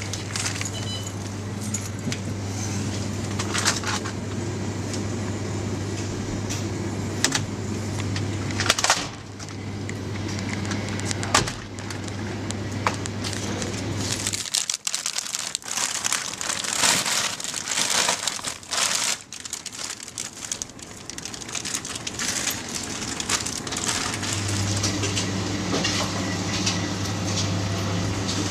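Supermarket ambience: a steady low electrical hum with scattered clicks, knocks and rustling from handling and walking. The hum drops out about halfway, where a denser hissy rustling takes over, and returns near the end.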